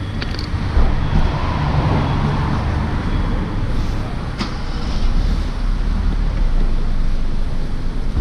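Steady street traffic rumble mixed with wind buffeting the microphone, with a single faint click about four and a half seconds in.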